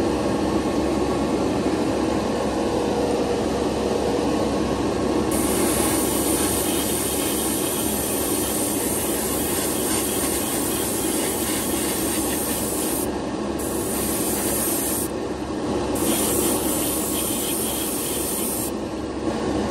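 Hobby spray booth extractor fan running steadily, with the hiss of paint being sprayed onto a small plastic model part. The spray hiss starts sharply about five seconds in and cuts out briefly three times.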